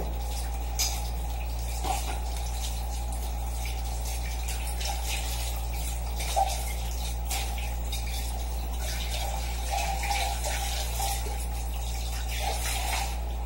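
Water running from a kitchen tap while a metal pot is scrubbed and scoured by hand, with irregular scraping strokes and a few light knocks of the pot.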